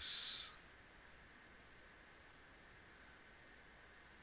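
A spoken word ends on a hissing 's' in the first half second. After that come a few faint, scattered computer mouse clicks over a low steady hum.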